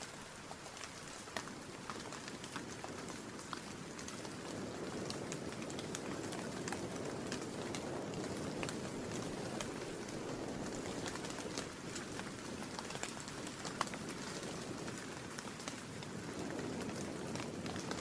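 Steady rain, with many separate drops ticking, over a low rush of wind that swells and eases.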